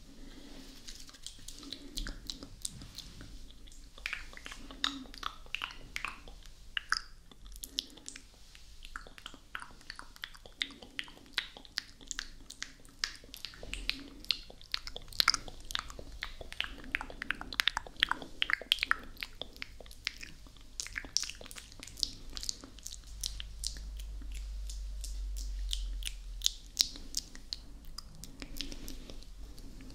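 Close-up wet mouth sounds: quick clicks and smacks of the lips and tongue, several a second, with no words.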